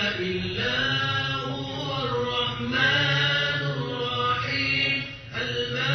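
Chant-like vocal music: a voice singing long, held notes that glide from one pitch to the next, with a short drop in level about five seconds in.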